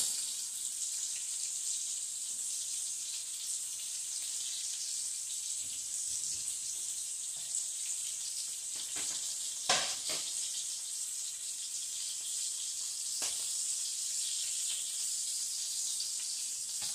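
Beef smash burger patties sizzling in hot grease, a steady frying hiss, with a few light clicks and knocks about nine to ten seconds in and again around thirteen seconds; the sharpest click, near ten seconds, is the loudest moment.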